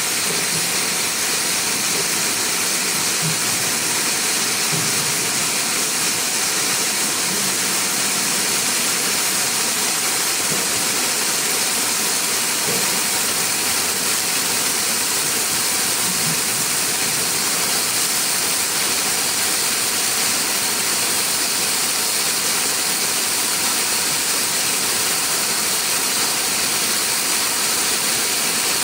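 Sprinkler spray from an automatic pitch irrigation system: a steady, even hiss of water jetting through the air and falling on turf.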